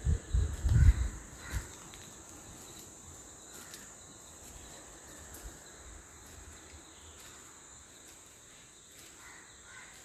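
Forest ambience of insects keeping up a steady high-pitched drone. In the first second and a half come a few loud, low thumps.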